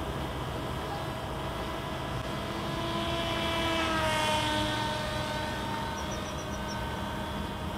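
Electric motor and propeller of a C1 Chaser flying wing passing overhead: its whine grows louder, then falls in pitch as it goes by about four seconds in, and fades. Under it runs a steady background hiss.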